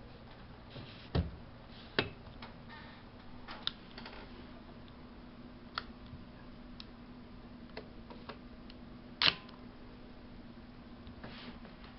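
Nikon 70-300 VR zoom lens on a Nikon D90 making a steady low hum with scattered sharp clicks, the loudest about nine seconds in: the annoying noise that comes with the picture shaking.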